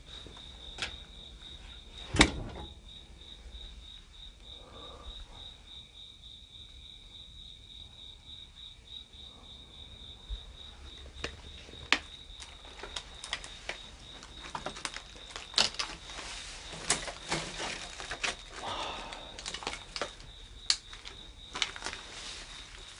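Crickets chirping in a steady, pulsing high trill. Over it come footsteps and scuffing through weeds and debris: one sharp knock about two seconds in, then frequent clicks and crunches in the second half.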